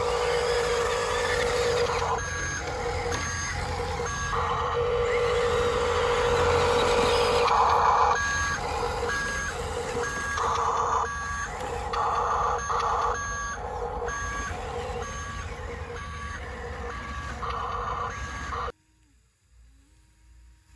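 Radio-controlled Scania tractor truck's sound module playing simulated engine noise with a steady hum. From about eight seconds in, a reversing beeper sounds about one and a half times a second, then everything cuts off suddenly near the end.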